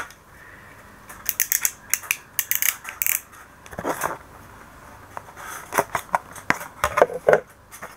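Wall charger's packaging being forced open by hand, crackling and snapping in several short bursts of sharp clicks with pauses between.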